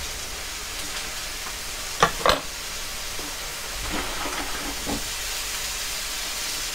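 Chicken frying in a pan on the stove, a steady sizzle. Two sharp knocks of a utensil against the pan about two seconds in, with a few fainter knocks later.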